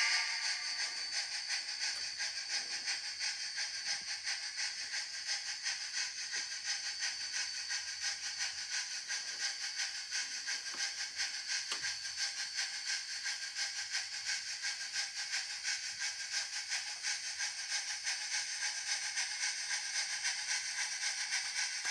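Large-scale model steam locomotive's sound system chuffing steadily as the train runs, even hissing chuffs about three a second.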